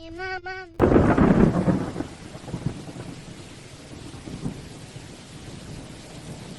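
A sudden clap of thunder just under a second in, rumbling away over about a second into steady heavy rain.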